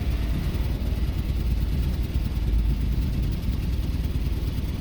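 2006 Jeep Commander's 4.7 L V8 idling with a low, uneven rumble. The engine has a random misfire (P0300), with cylinder 6 flagged on the scan tool.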